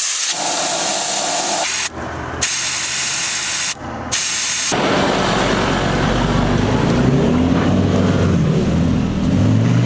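Air hissing out of a 4x4's tyre valve as it is aired down for soft sand, in three bursts with two short breaks. About five seconds in it gives way to a Ford Ranger's engine running as the truck drives off over sand.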